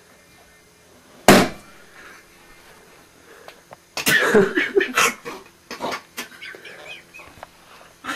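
A short, loud burst of noise about a second in, then a few seconds of a person's muffled vocal sounds starting about four seconds in.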